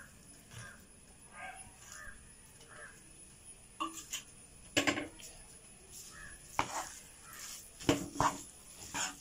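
Metal spatula knocking and scraping in a nonstick frying pan as stir-fried noodles are mixed, with a few sharp clicks in the second half. Faint caw-like bird calls sound in the background.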